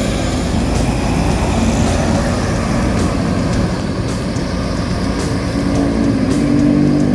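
Mercedes-Benz-chassis intercity bus's diesel engine running with a steady low rumble as the bus pulls away.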